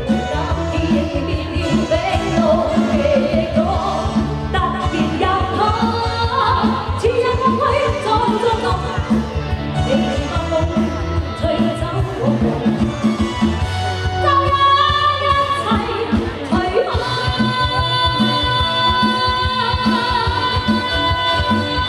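A woman singing a pop song into a microphone over amplified concert accompaniment with a steady beat and bass, holding long notes in the second half.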